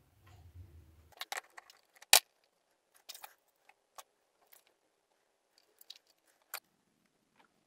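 Scattered small clicks and taps of hard parts being handled, with one sharper click about two seconds in.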